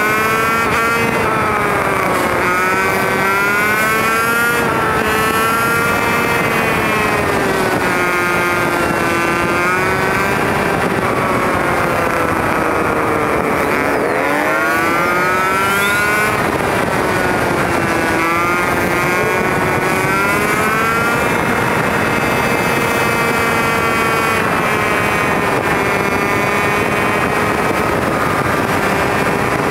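Honda CT110 postie bike's small single-cylinder engine running under way, its pitch climbing and dropping every few seconds as it accelerates and changes gear. A steady rush of wind and road noise sits underneath. The audio is sped up with the time-lapse, so the engine sounds high and fast.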